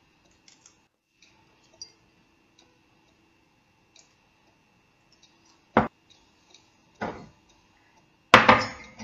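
A faint steady hum with scattered small ticks and knocks. There is one sharp click about six seconds in, a short noisy scrape or rustle near seven seconds, and a louder burst of noise lasting under a second about eight and a half seconds in.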